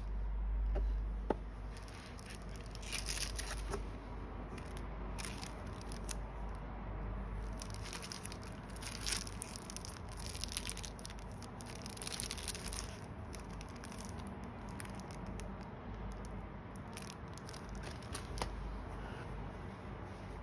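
Cellophane wrapping crinkling and cardboard presentation boxes rustling and scraping as they are handled with cotton gloves, in short irregular bursts.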